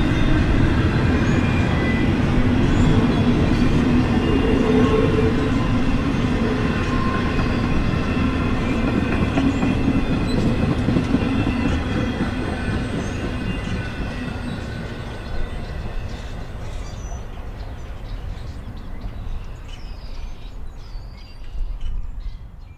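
N scale model freight train of loaded hopper cars running past on the track, a steady rumble with faint steady tones above it that fades gradually as the train moves off.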